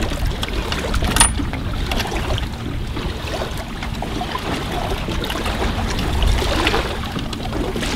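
Steady low rumble of wind and water at the shoreline, with a sharp metallic clink and brief ring about a second in and a few lighter clicks later, as a trailer safety chain and shackle are fastened to a jet ski's bow eye.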